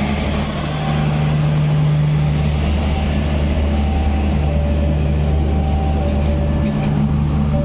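Indonesian passenger train rolling slowly past: the dining-and-power car's diesel generator set gives a steady low drone over the rumble of the coaches.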